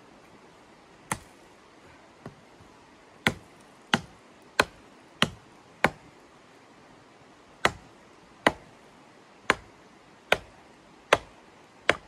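Hatchet chopping into a thin wooden pole: about a dozen sharp strikes, two lone blows first, then a quick run of five about every half second, a short pause, and a run of six more.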